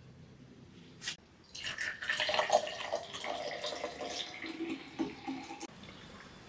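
Macadamia nut milk poured into a glass, a liquid gurgle lasting about four seconds, after a short click about a second in.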